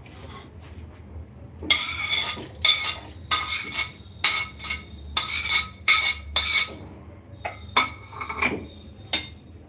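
A steel spoon scraping mango pulp off a ceramic plate and clinking against the plate and a steel mixer jar. It makes about ten short scrapes with a metallic ring, starting about two seconds in.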